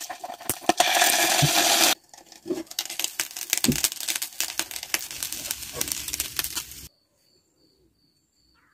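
Hot oil sizzling and crackling in a frying pan as an egg fries. A loud hiss about a second in cuts off suddenly, then crackling and popping runs on until it stops abruptly near the end.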